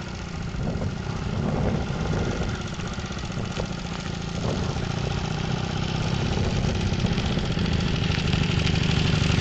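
Motorcycle engine running at low speed, getting gradually louder over the last few seconds.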